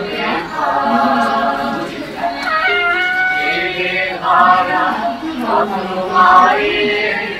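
Singing voices with music, holding long notes that slide up and down.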